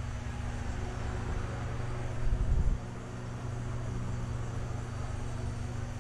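Steady mechanical hum of ventilation fans and electrical equipment, with a low steady tone under it; a brief louder low rumble about two and a half seconds in.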